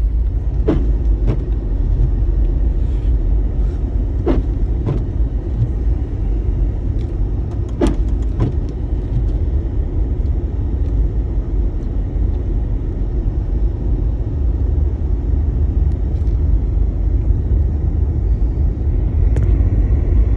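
Car driving through deep snow, a steady low rumble of engine and tyres, with a few sharp clicks or knocks in the first half.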